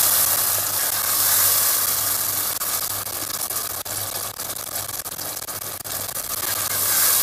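Grated tomato sauce sizzling in hot oil in a nonstick pot as it is stirred with a spatula: a steady frying hiss, with a run of small crackles and scrapes in the middle.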